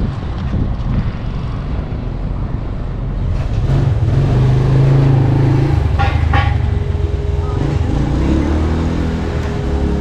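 A motor vehicle engine running close by. It swells louder from about three and a half to six seconds in, with two sharp clicks near the six-second mark, and a steady hum continues under it to the end.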